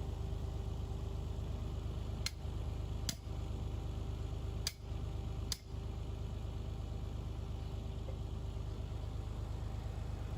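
Small motor of a homemade wedge-type firewood splitter running steadily with a constant hum. Four short clicks come between about two and six seconds in, the sound dipping briefly at each.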